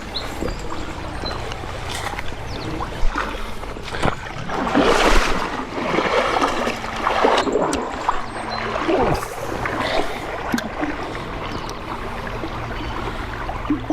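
Creek water running steadily, with bursts of splashing around the middle and a few sharp knocks.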